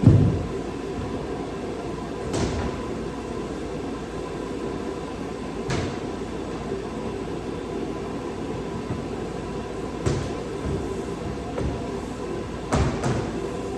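A handful of short knocks and thumps, about six, spread out, the first the loudest and two close together near the end, over a steady background hum.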